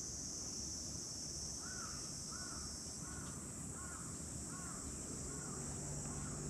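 A crow cawing about seven times in an even series, starting about a second and a half in, over a steady high-pitched insect chorus.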